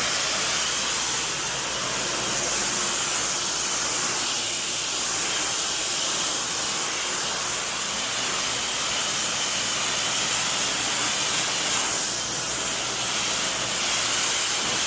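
High-pressure water spray from a pressure washer, hissing steadily without a break.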